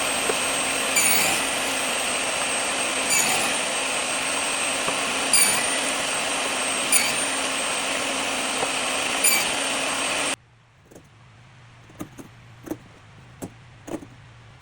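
A woodworking power tool running steadily with a high whine. It cuts off suddenly about ten seconds in, and a few sharp taps follow.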